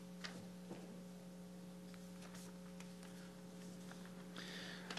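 Steady low electrical hum from the microphone and sound system, with a few faint clicks and a brief rustle of paper about four and a half seconds in.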